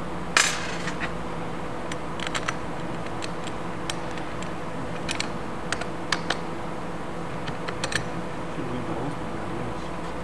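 Scattered light clicks and taps of a metal skylight bar and clip being handled and adjusted on a wooden block, with a short scrape about half a second in, over a steady background hum.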